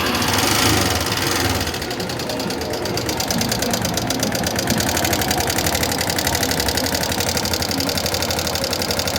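A Yamaha Fazer 250's single-cylinder four-stroke engine idles with a fast, even clatter from the top end, slightly higher for the first second before settling. The mechanic traces the noise to a worn, slack cam chain whose tensioner is at the end of its travel, together with a worn camshaft and loose rocker arms after the bike was run low on oil.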